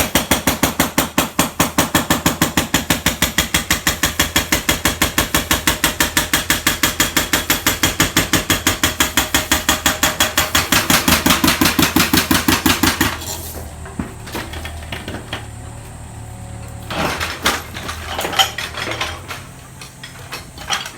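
Excavator-mounted hydraulic breaker pounding a hard concrete floor with rapid, even blows, about seven a second. It stops about 13 seconds in, leaving the machine running with a few scattered knocks and clanks.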